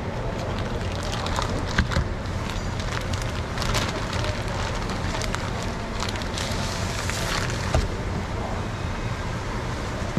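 Clear plastic bag crinkling and rustling as it is peeled off a whole fish and handled, with a couple of sharp clicks, over steady background noise.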